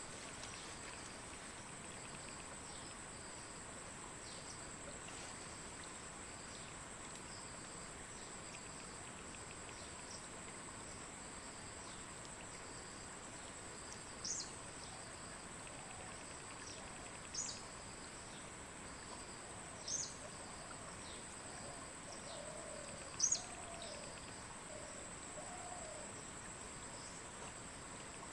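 Forest ambience dominated by a steady high-pitched insect drone, with short sharp chirps every few seconds, the loudest near the end, and a few soft low calls late on.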